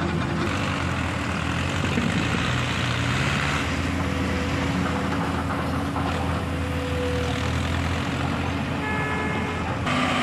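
Heavy diesel tractor engine running steadily under load, pulling a loaded trolley through soft sand. The sound shifts slightly a few times where one clip gives way to the next.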